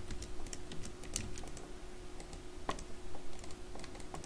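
Computer keyboard keys tapped irregularly, a scattering of separate clicks, over a steady faint hum.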